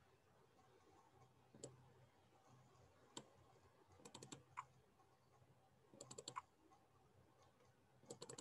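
Faint clicks of a computer keyboard and mouse: a couple of single clicks, then short quick runs of keystrokes a couple of seconds apart.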